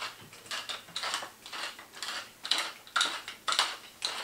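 A tall wooden pepper mill grinding pepper in quick, repeated twists, about two or three rasping grinds a second.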